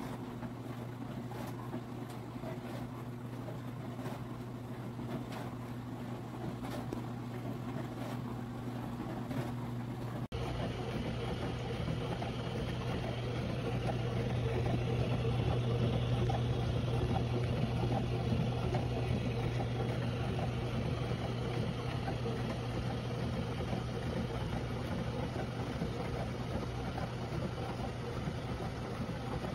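Portable countertop dishwasher running: a steady motor hum with a rushing haze over it. About ten seconds in the recording cuts to another take, and the sound grows somewhat louder after that.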